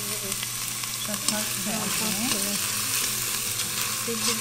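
Diced onion sizzling steadily in hot olive oil in a stainless steel pot, stirred with a metal spoon, with a light clink of the spoon about a second in.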